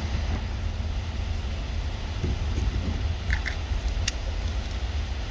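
Steady low rumble of wind buffeting the microphone outdoors, with a faint click about four seconds in.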